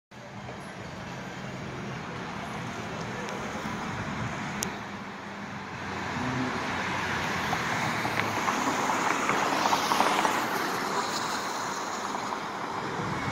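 Road traffic noise, with a vehicle passing close by: the hiss of its tyres and engine swells and is loudest about ten seconds in.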